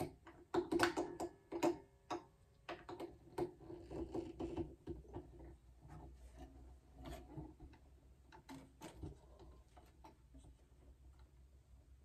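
Handling noise from restringing an Epiphone Casino guitar: irregular clicks, taps and string rattles as the string is threaded and wound at the headstock tuning pegs, with a cluster of sharper clicks in the first two seconds.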